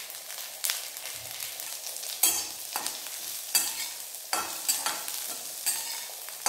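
Cut green chillies, ginger and curry leaves sizzling in hot oil in a small wok, while a steel spatula stirs them. The spatula scrapes and knocks against the pan about seven times over the steady sizzle, loudest about two seconds in.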